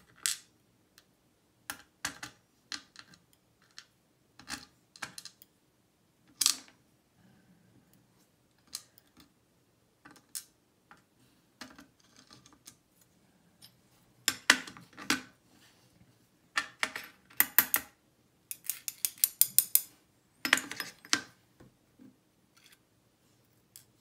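Tweezers and small lock pins clicking and tapping against a metal pin tray as a lock cylinder is taken apart. The clicks come irregularly, and bunch into a fast run of clicks about three-quarters of the way through.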